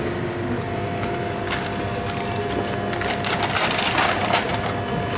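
Paper shopping bag rustling and crinkling as it is opened and handled, busiest about three to four and a half seconds in, over a steady background hum.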